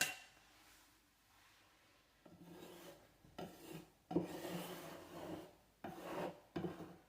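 Putty knife scraping over a wooden door frame, spreading and smoothing spackle into scratches. A short click at the start, then about five scraping strokes from about two seconds in.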